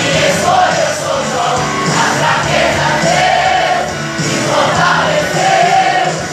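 Live Christian worship music: a band playing with a choir singing long held notes.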